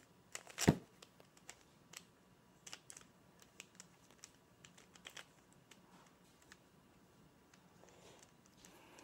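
Plastic 3x3 Rubik's Cube being twisted by hand: faint, irregular clicks as its layers turn, with one louder knock under a second in.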